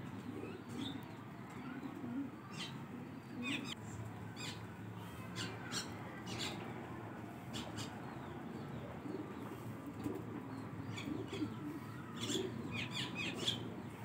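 Pigeons pecking grain off a concrete floor: quiet, irregular quick taps of beaks on the hard surface, clustering in runs near the end.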